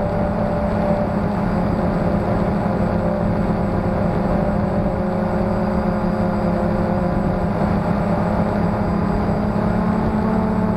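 Phantom quadcopter's motors and propellers whirring steadily, heard from its onboard camera as it flies low, the pitch drifting slightly with throttle.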